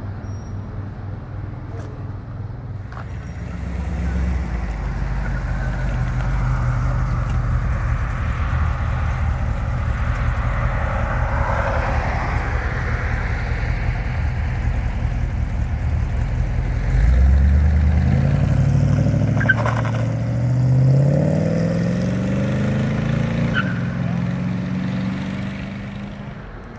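Early-1970s Dodge Challenger's engine rumbling as the car pulls out, growing louder after a few seconds. About two-thirds through, the revs jump and the car accelerates away with a climbing engine note, fading near the end.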